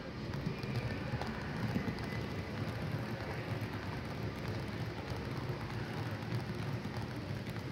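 Model electric train rolling along the layout track: a steady rumble of wheels on rail with a faint crackling clatter.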